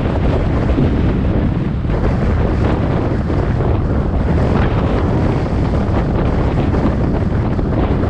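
Steady wind buffeting the microphone, over the road noise of a car driving at speed on an expressway.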